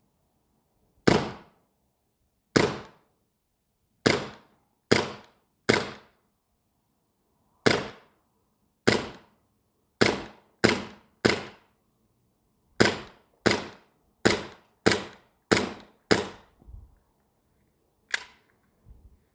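Umarex Elite Force 1911 gas-blowback airsoft pistol firing on CO2: about sixteen sharp shots at an uneven pace, some in quick runs about two-thirds of a second apart, followed by two weaker shots near the end.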